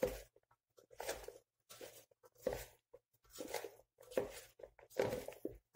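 Raw potato sticks coated in salt, spice mix and flour being tossed and mixed by hand in a steel pot: a series of short rustling, crunching strokes, roughly one a second, with brief pauses between.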